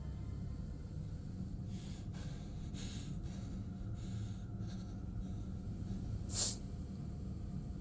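A man breathing hard, with several audible breaths and a sharp gasp near the end, over a steady low rumble.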